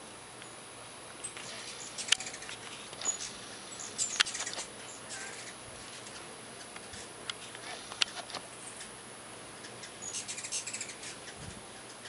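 Hummingbirds chittering and chipping: short bursts of high, sharp calls with a few louder ticks, bunched around two seconds in, four seconds in, and again near ten seconds in.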